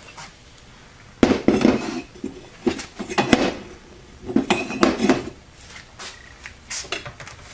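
Metal automatic-transmission parts (a pump and stator-support assembly and the clutch drums around it) clanking and clinking as they are handled and set down on a workbench, in four short bursts of knocks.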